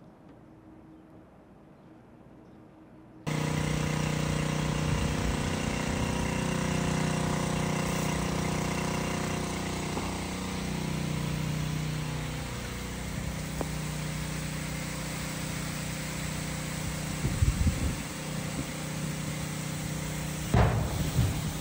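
Near silence for about three seconds, then a sudden cut to a vehicle engine running steadily, its pitch dipping slightly partway through, with a few low thumps near the end.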